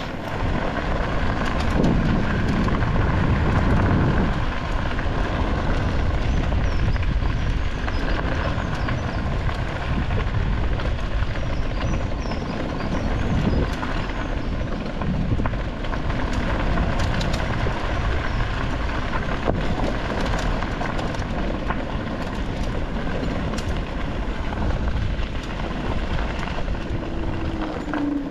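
Motokettu off-road vehicle's engine running steadily while being ridden, with low uneven rumble from the ride over rough ground.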